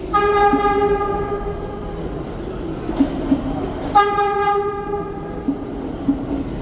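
R211T subway train's horn sounding two blasts: a long one of about two seconds at the start, then a shorter one about four seconds in, over the rumble of the moving train and a few wheel knocks.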